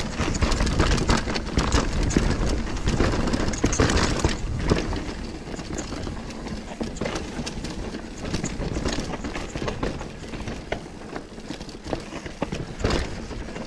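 Mountain bike descending a rough downhill trail: steady tyre noise on dirt with a constant clatter of knocks and rattles from the bike over roots and rocks, and a low rumble of wind on the microphone. The rumble is heaviest for the first few seconds, then eases.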